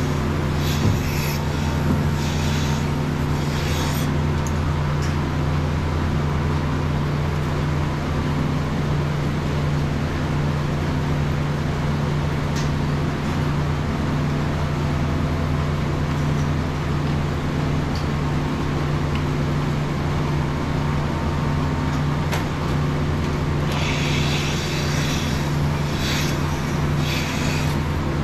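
Dairy milking equipment running in a tie-stall barn: a steady machine hum from the milking vacuum system, with spells of airy hissing near the start and again near the end.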